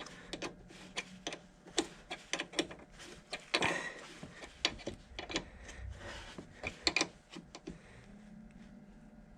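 Sharp, irregular metallic clicks and taps of a hand tool working on the battery terminal clamps as they are tightened, with a brief scraping rustle about three and a half seconds in.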